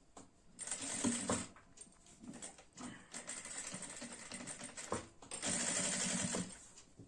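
Sewing machine stitching in short runs that start and stop, the longest and steadiest lasting just over a second near the end.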